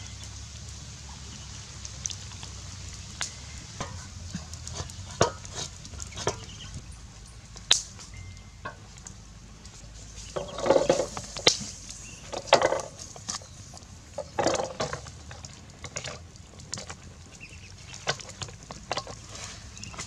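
Eggs being set into a metal pot of water, with sharp clicks of shell against shell and metal, and a few louder clunks and splashes around the middle.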